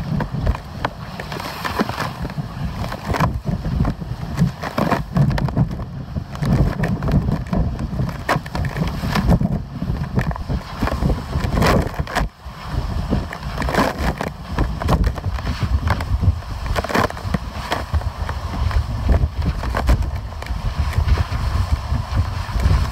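Strong gusty wind buffeting the microphone: a heavy, uneven low rumble that swells and dips, with scattered sharp knocks.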